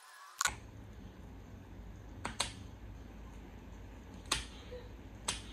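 Five short, sharp taps over a steady low hum, two of them close together in the middle. The hum comes in suddenly about half a second in.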